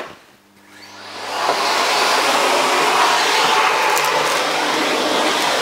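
Canister vacuum cleaner running, its steady rushing noise swelling up over the first two seconds or so and then holding level as the nozzle is pushed along the floor.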